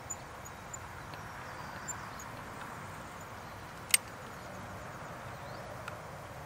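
Steady outdoor background with a few small clicks and one sharp click about four seconds in, from the scoped crossbow being handled on its tripod between test shots.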